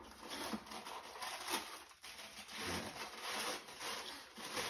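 Paper wrapping rustling and crinkling, with cardboard rubbing, as a shoe box is opened and the paper inside pulled back, in a run of irregular swells.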